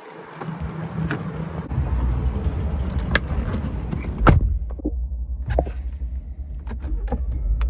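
Ford F-150 Raptor's 3.5-litre twin-turbo EcoBoost V6 idling with a steady low rumble. A sharp knock about four seconds in, then several lighter clicks.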